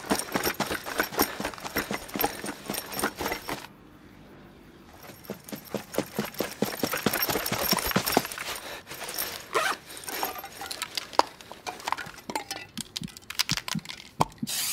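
A dense, irregular run of sharp clicks and clattering knocks. It breaks off for about a second a little under four seconds in, then starts again.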